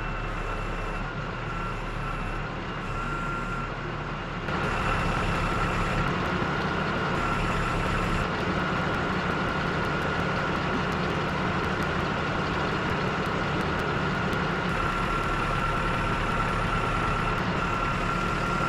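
Engine of a machine with a hydraulic bucket arm running steadily under load, with a thin steady whine over the rumble, as it lifts and carries a heavy hydraulic cylinder on a strap. It gets louder about four and a half seconds in.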